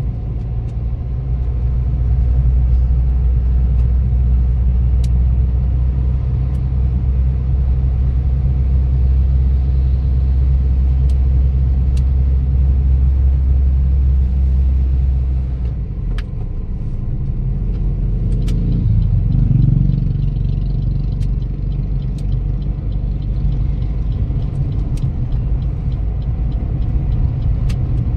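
A car driving on a highway, heard from inside the cabin: a steady low rumble of engine and road noise. Past the middle the deepest part of the rumble drops away and the engine note rises briefly before settling again.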